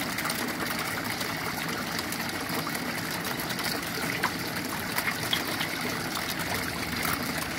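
Water trickling and splashing steadily into a concrete eel-rearing tank from its recirculation pipe.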